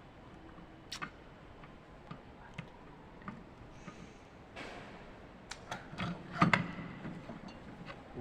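Scattered light clicks and knocks at uneven intervals, like small hard objects being handled and set down, with the loudest knock about six and a half seconds in.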